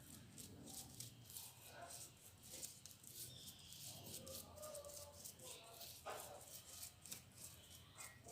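Faint paintbrush dabbing and scratching on a rough, cement-coated paper surface: a rapid, irregular series of short scratchy taps as varnish is stippled on, over a low steady hum.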